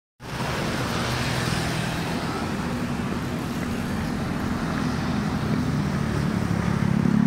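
Road traffic: motor scooter engines running past close by over a steady wash of traffic noise. It starts abruptly just after the beginning.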